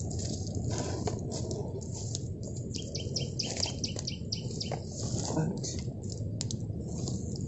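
Small birds chirping, with many short high tweets scattered through, over a steady low background noise.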